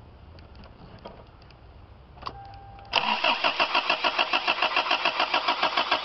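The starter motor cranks the Toyota Cressida's engine from about three seconds in, after a click, in a fast, even rhythm, and the engine never catches. This is a fuel-delivery test with the carburetor fuel line off: no fuel comes, so the mechanical fuel pump is judged bad.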